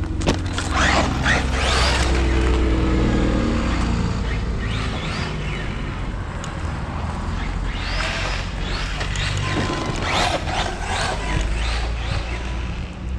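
Maverick Quantum RC truck's brushless electric motor whining in several short bursts of throttle, each swell rising and falling in pitch, over a steady low rumble.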